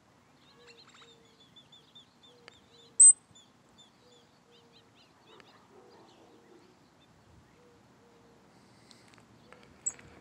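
Birds calling: a faint, rapid run of short high chirps, a sharp, loud high chirp about three seconds in and another near the end, over a faint low note that repeats about once a second.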